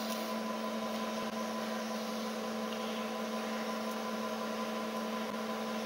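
Steady hum from the milling machine: a constant low tone with a few fainter higher tones over it, holding level throughout.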